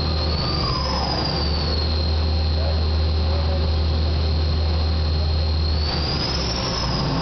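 Takamaz XY 1000 CNC lathe running: steady machine noise with high whining tones that glide up and down as the motors change speed. A low hum swells about a second and a half in and falls back near six seconds.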